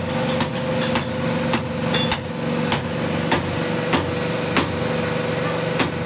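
Sharp metal-on-metal hammer blows on a steel truck suspension trunnion shaft, struck at an even pace about every 0.6 s, over a steady machine hum.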